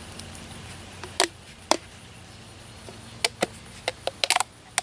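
A string of sharp plastic clicks and knocks, two spaced ones and then a quicker cluster near the end, as the lid of a tub of catfish dough bait is worked open.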